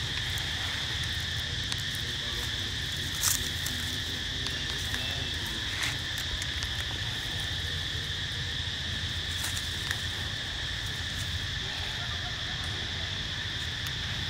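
A steady chorus of insects droning as one continuous high buzz, with a few short sharp clicks, the clearest about three seconds in.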